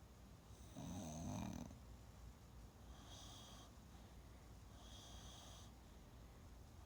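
Gentle, faint snoring of a sleeper. A louder, deeper snore comes about a second in, then softer, higher-pitched breaths about every two seconds.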